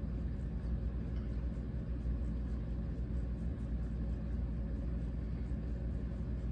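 Small motor of a rotating display turntable running steadily: a low hum and rumble with faint regular ticking, about three a second.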